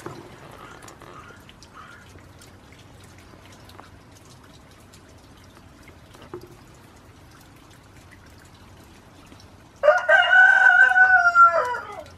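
A goat gives one loud, drawn-out bleat about two seconds long, starting near the end and sagging in pitch as it dies away. Before it, only faint scattered ticks, like raindrops.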